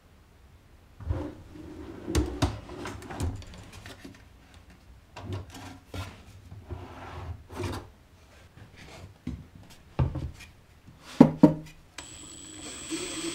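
Plywood cabinet door and a drawer on metal ball-bearing slides being opened and shut: scattered wooden knocks, clicks and rubbing, the loudest knock near the end. About a second before the end a power screwdriver starts running steadily.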